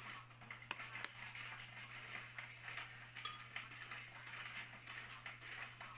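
Light kitchen clatter: dishes and utensils clinking and scraping, with a few sharp clicks, over a steady low hum.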